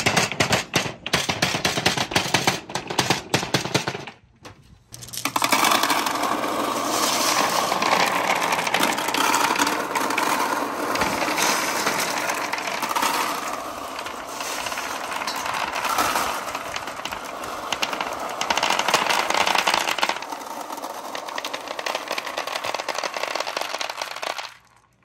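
Pool balls rolling out of a clear tube down a wooden pegboard slope, knocking against each other and the pile below in a quick run of sharp clacks. After a short pause, a long, dense clatter of many glass marbles pouring from a plastic bucket and rattling down the pegged wooden slope, stopping suddenly near the end.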